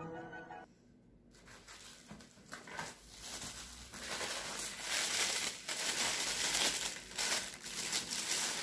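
Clear plastic bag crinkling as a condenser microphone is pulled out of it. The crinkling starts faint about a second in and grows louder and denser over the last few seconds.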